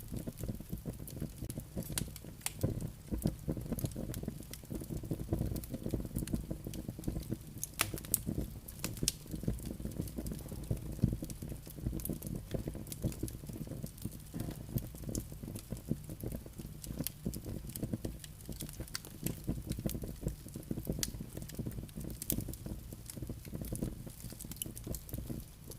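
Log fire crackling: frequent sharp pops and snaps from the burning wood over a steady low rumble of the flames.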